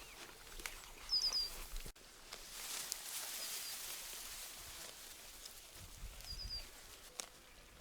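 A small bird chirping in quick runs of three high notes, once about a second in and again near the end, over a soft outdoor hiss and a low wind rumble.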